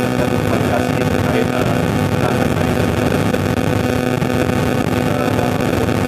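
Steady loud droning noise with a low constant hum, like running machinery.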